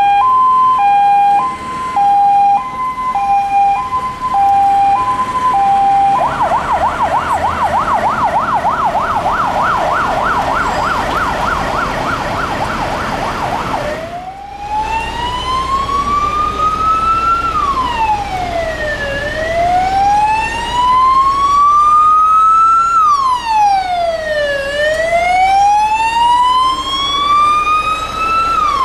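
Electronic siren of a fire engine on an emergency run. It alternates between two tones, switches after about six seconds to a fast yelp, and after a break near the middle becomes a slow wail rising and falling about every five seconds.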